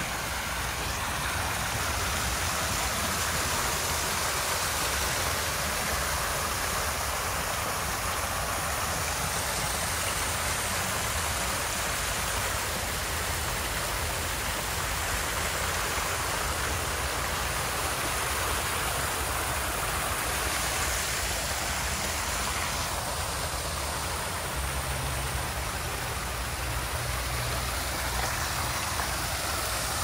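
Waterfall: a steady, loud rush of falling water that starts suddenly and runs on without a break.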